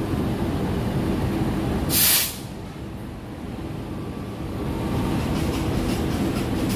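Passenger train running on rails, a steady rumble, with one short, loud hiss about two seconds in.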